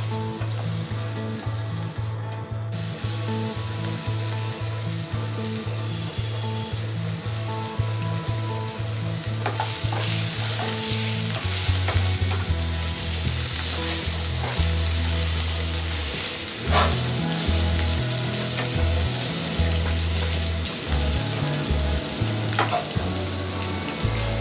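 Cubed potatoes frying in hot oil with whole spices in a non-stick kadai: a steady sizzle that grows brighter about ten seconds in, with a spatula stirring and three sharp clicks against the pan.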